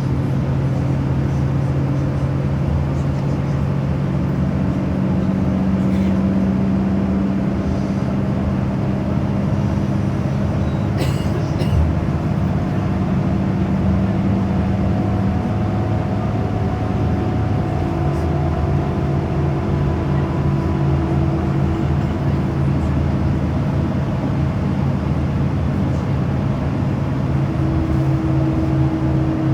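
Steady drone of a moving vehicle: a continuous engine hum over road noise, with a brief clatter about eleven seconds in.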